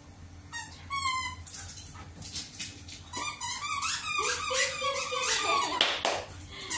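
Dog whining and yipping in play over a toy, a string of short high-pitched calls, then a single hand clap about six seconds in.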